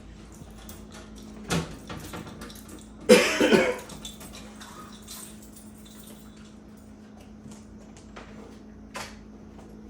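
A person coughs about three seconds in, a short loud burst over a steady low hum, with a couple of faint knocks before and after.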